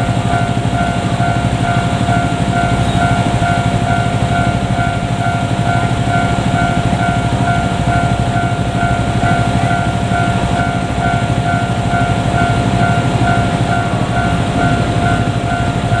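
Japanese level-crossing warning bell ringing steadily in quick, even repeats, over the low rumble of a KiHa 47 diesel railcar set rolling slowly toward the crossing.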